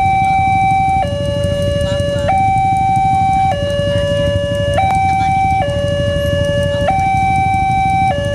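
Alkmaar railway level-crossing warning siren sounding its two-tone alarm. It switches back and forth between a higher and a lower steady tone, each held a little over a second, over a steady low rumble.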